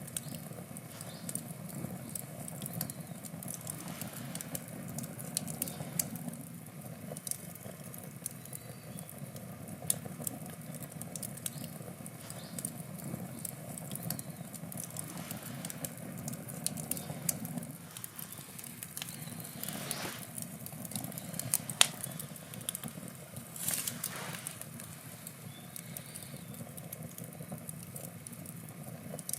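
Wood campfire burning, crackling and popping steadily with many small snaps and a loud snap near the middle. A low rumble underneath fades out a little past halfway.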